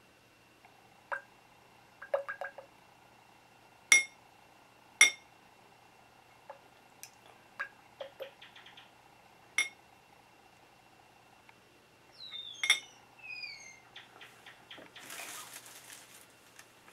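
Glass test tube clinking and tapping again and again as nickel(II) chloride crystals are dissolved in water, the two loudest clinks about four and five seconds in. Near the end there is a brief swishing noise.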